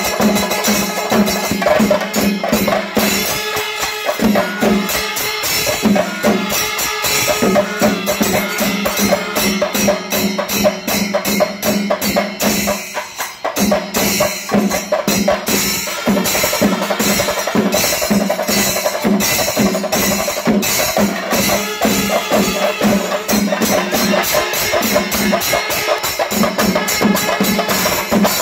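Kerala temple percussion ensemble (chenda melam): chenda drums beating fast and steadily, with the kuzhal pipe and curved kombu horns sounding over the drumming. The playing thins out for a moment about thirteen seconds in, then picks up again.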